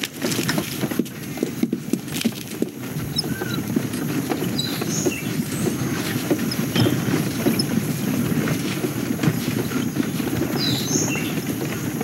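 Film sound-effects ambience: a dense, steady pattering of many tiny impacts. Two clusters of short high chirps come through, one about five seconds in and one near the end.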